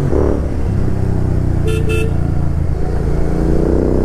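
Royal Enfield Continental GT 650 parallel-twin motorcycle riding off: the engine note drops at a gear change at the start, holds, then climbs again under acceleration. Two short horn toots sound about two seconds in.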